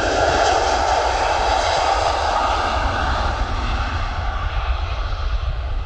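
Airbus A330-300's Rolls-Royce Trent 700 turbofans at takeoff power during the takeoff roll, a loud roar with a deep rumble. It is loudest as the airliner passes close by and fades in the second half as it moves away down the runway.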